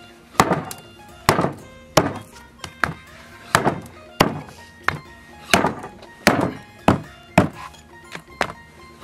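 Cleaver chopping beef ribs on a wooden tree-stump chopping block: about a dozen sharp strikes at a steady pace, roughly one every half to three-quarters of a second, over background music.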